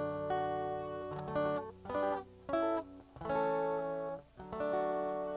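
Acoustic guitar played solo, a series of strummed and picked chords with short gaps between them, the song's last chord struck near the end and left ringing.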